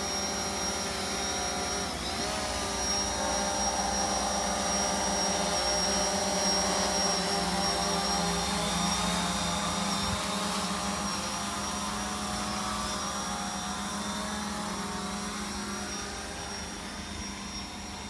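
Quadcopter drone hovering close to the ground, its propellers giving a steady multi-tone whine that dips briefly in pitch about two seconds in.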